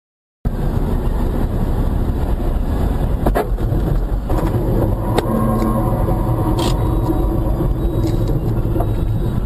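Car driving on a wet city road, recorded by a dashcam inside the cabin: steady engine and road rumble that begins about half a second in, with a couple of faint clicks.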